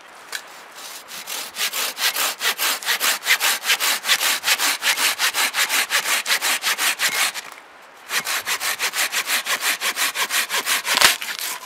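Silky Big Boy 2000 folding hand saw cutting through a dead log in rapid back-and-forth strokes, a brand-new blade on its first cut. The sawing stops briefly about seven seconds in, resumes, and ends with a sharp crack near the end.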